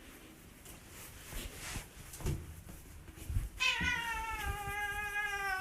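A cat giving one long, drawn-out meow that starts a little over halfway through, its pitch sliding slowly down. Before it there are only a few faint knocks.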